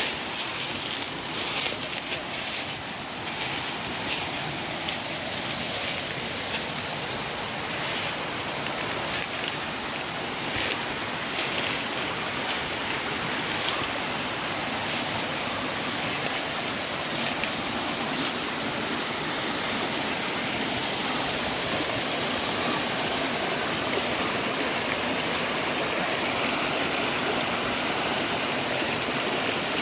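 Steady rushing of a waterfall's falling water, with scattered short crackles during the first half.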